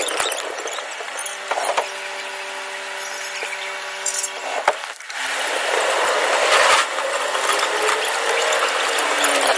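Train running noise heard in the driver's cab as the train pulls away. For a few seconds a steady hum of several held tones sits over the running noise. It breaks off sharply about five seconds in, and a louder even rushing noise follows, with a faint whine near the end.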